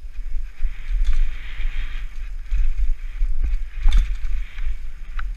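Mountain bike riding fast down a dirt singletrack: wind buffeting the microphone as a steady low rumble, tyres hissing over dirt and dry leaves. A few sharp clacks from the bike over bumps, the loudest a little under four seconds in.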